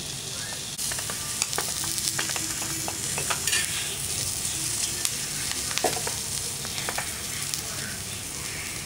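Whole lamb spleens sizzling on a hot tawa, with a metal spatula scraping and tapping the pan now and then as they are pressed and turned. They are being seared whole to firm them up so they are easier to cut.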